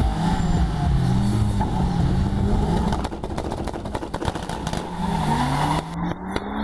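Two car engines, a turbocharged Fiat X1/9 and a Honda Civic, revving at a drag-race start line, their engine notes wavering up and down as the revs are held. Near the end they launch and the engine notes rise as the cars pull away.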